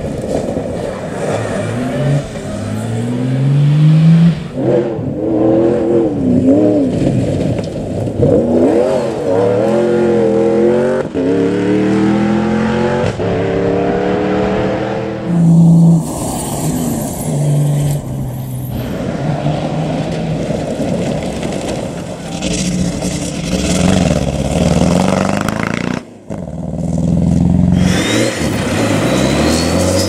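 Rally-raid 4x4 cars driven hard on gravel, one after another. Their engines rev up and drop back through gear changes as they accelerate past, with loose gravel spraying from the tyres.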